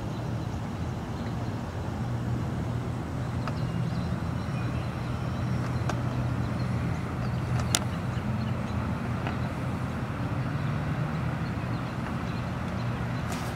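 Floodwater rushing over a roadway, with a steady low motor hum. There is one sharp click about eight seconds in.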